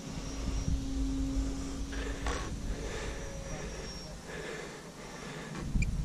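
Wind buffeting the microphone in a low, uneven rumble, over the thin, steady whine of the E-flite Valiant RC plane's electric motor flying overhead. The motor's tone holds for the first few seconds, then fades.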